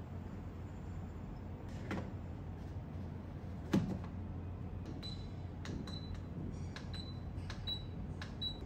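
Ultrasonic aroma diffuser being set up: a knock as its cover is set onto the base, then about five short high beeps, roughly one a second, each with a button click, as it is switched on and its buttons are pressed.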